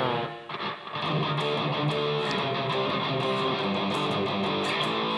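Electric guitar with a high-gain distorted tone from an amp modeler, played through the amp. It starts with a couple of short chugs, then from about a second in a big chord is held and rings steadily.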